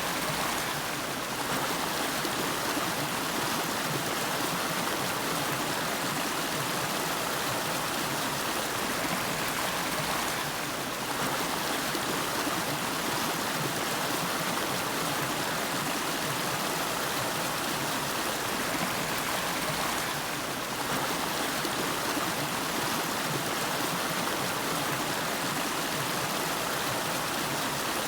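A river flowing: a steady rush of water, with a brief slight dip in loudness about every ten seconds.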